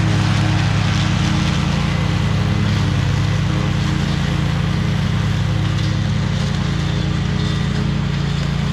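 Small petrol engine of lawn equipment running steadily at an even speed.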